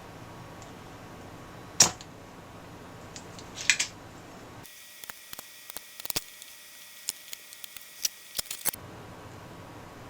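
Sharp clicks and light ticks of small hand tools and parts being handled while a failed resistor is removed from the receiver's circuit board: one loud click about two seconds in, another near four seconds, then a run of small irregular ticks.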